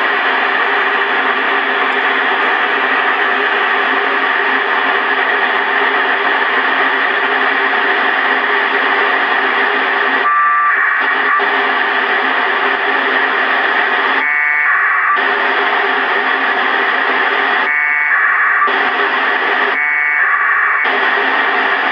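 FM radio receiver on 145.825 MHz, the ISS APRS frequency, giving steady open-squelch hiss. It is broken four times in the second half by short packet-data bursts, each about a second long, in which the hiss drops away under a buzzy data tone.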